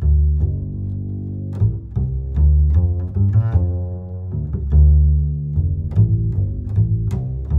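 Background music with a deep bass line of held and short plucked notes.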